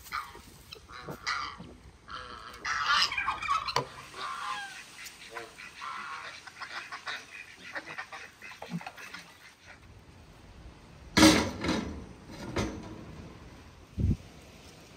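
Domestic geese honking and calling among other farmyard poultry while they feed on scattered grain, with a louder, closer burst of sound about eleven seconds in and a low knock near the end.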